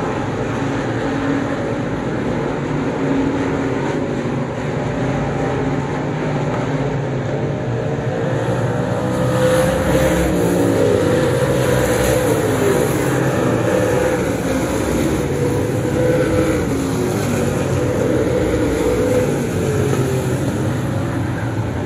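Street stock race car engines running hard on a dirt oval, the engine note rising and falling repeatedly through the laps, a little louder from about eight seconds in.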